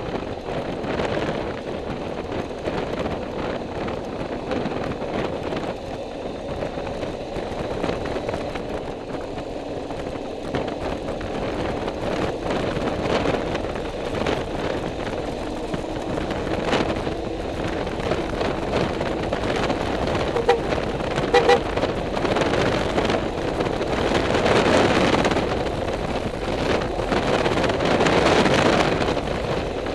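Steady road and wind noise from a moving vehicle on the ride, with a couple of short horn toots about two-thirds of the way in.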